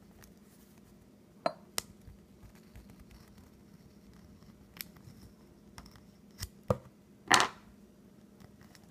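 Screwdriver tip prying a small rubber O-ring off a brass coolant temperature sensor: scattered light clicks and scrapes of metal on metal and rubber, with a louder scrape near the end.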